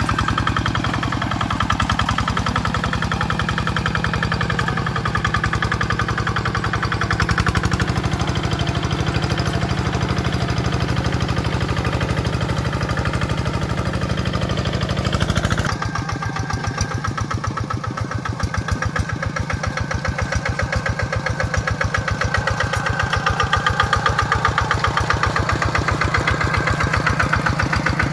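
Kubota RD65 single-cylinder diesel engine of a two-wheel hand tractor running steadily under load as it works a waterlogged rice paddy. Just past halfway the sound changes abruptly to a closer, more distinct rapid beat of the single cylinder.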